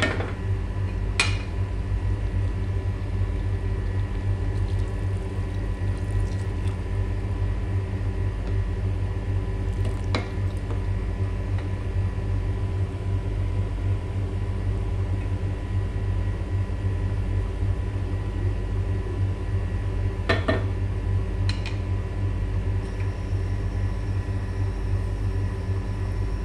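Pot of chicken kabsa, broth and rice, simmering on a stove under a steady low rumble and hum, with a few short knocks against the pot: one about a second in, one near the middle and two near the end.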